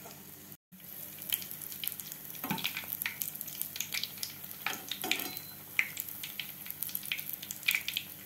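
Sweet bonda batter balls deep-frying in oil on a medium flame: steady sizzling and crackling, with a few louder clacks as a slotted spatula turns them. The sound cuts out briefly about half a second in.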